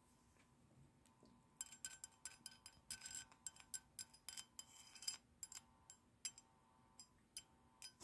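Faint irregular clicks and crackles from a small audio amplifier as a wire lead is touched and rubbed against a steel file: a dense run for about four seconds from under two seconds in, then a few scattered clicks. The uploader takes these for metal-on-metal contact suddenly disturbing the mains electric field that the amplifier picks up through wire capacitance.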